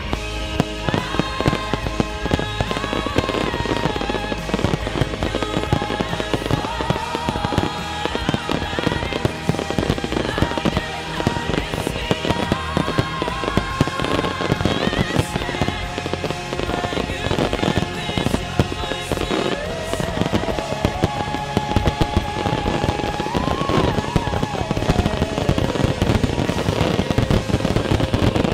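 Aerial firework shells bursting in rapid, overlapping succession over music with a wavering melody line. The barrage builds into a dense finale salvo near the end.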